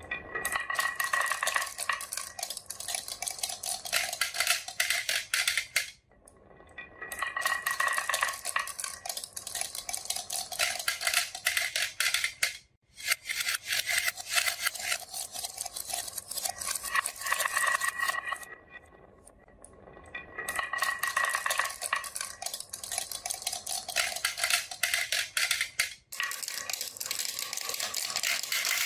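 Glass marbles rolling down wooden marble-run tracks: a dense, rapid clatter of marbles clicking against each other and the wood, with a steady ringing rolling sound. The run stops and restarts three or four times.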